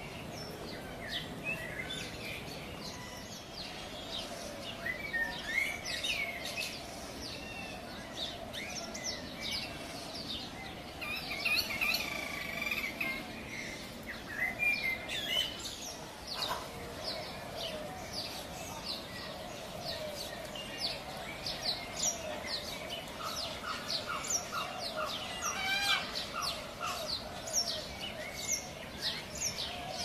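Cockatiels chirping and calling: many short, quick chirps and whistled calls throughout, with a brief run of evenly repeated notes about three quarters of the way through.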